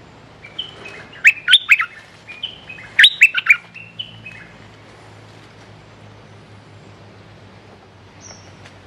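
Stripe-throated bulbul singing: two quick bursts of loud, rapid chirping notes in the first four seconds, then a single faint note near the end.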